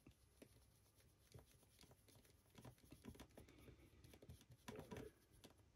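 Near silence, with faint scattered small taps and scratches from handling a 3D-printed figure and working a fine paintbrush on it.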